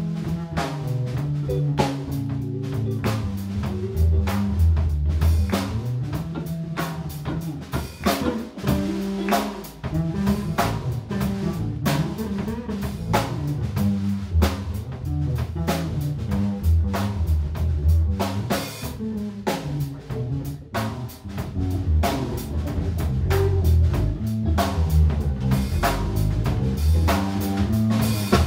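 Live rock band playing an instrumental passage: a drum kit keeps a steady beat of kick, snare and cymbals under electric guitars and a moving bass line.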